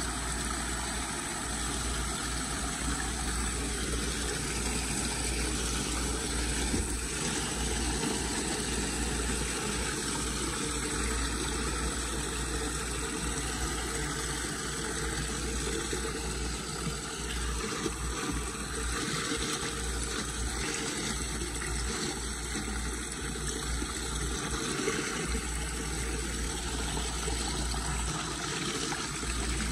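Muddy floodwater pouring steadily through a storm drain grate as the leaf clog is cleared, a constant rushing noise over a deep rumble.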